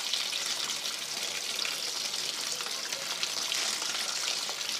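Cold water running through freshly boiled, drained macaroni in a strainer: a steady hissing splash that does not let up, rinsing the pasta.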